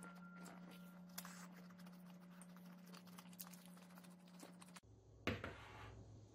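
Faint crisp crackles and clicks of a toasted sandwich being handled and eaten, over a low steady hum. About five seconds in, a single knock as a tin can is set down on the kitchen counter.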